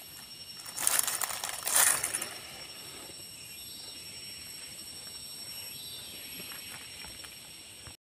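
Dried black peppercorns and dry leaves rattling and rustling as a hand stirs through them on a mesh drying net, for about a second and a half early in the clip. After that only a steady low outdoor background with thin high steady tones.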